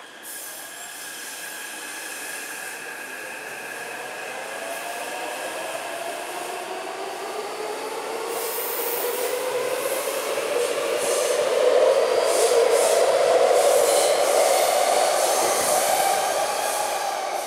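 Taipei Metro C381 train pulling out of the station. Its traction motors whine in several tones that rise steadily in pitch as it accelerates, with rail and wheel noise. The sound grows louder to a peak about twelve seconds in, then eases slightly.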